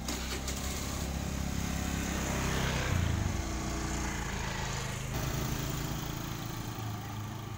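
Two small motor scooters pulling away and riding past, their engines loudest about three seconds in as they go by close, then fading as they ride off.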